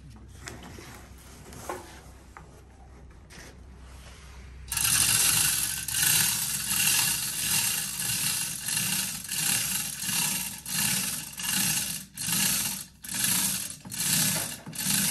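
Manual chain hoist being hauled hand over hand to lift a boat hull: the chain rattles and scrapes through the hoist in a steady rhythm of pulls, a little over one a second. The hauling starts about five seconds in, after a few faint clicks.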